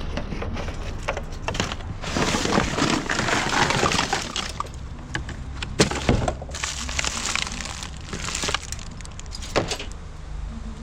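Hands rummaging through discarded rubbish: two long stretches of rustling and rummaging, with sharp knocks and clatters of items being moved, about six seconds in and again near the end.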